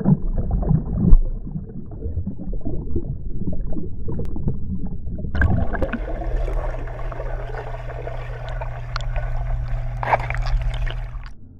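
Pool water splashing and gurgling around a GoPro in its waterproof housing, heard muffled as a dog plunges in, with a loud splash about a second in. About five seconds in the sound turns brighter, with a steady low hum underneath.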